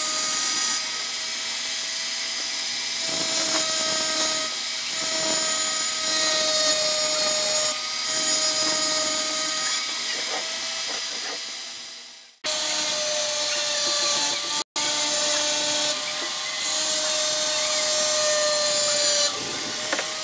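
Flexible-shaft rotary tool running with a steady high-pitched whine while its small bit grinds a hole into a clear glass bottle, with a gritty hiss; the pitch and level waver as the bit presses on the glass. It fades out about twelve seconds in, then comes back abruptly, with a very short break two seconds later.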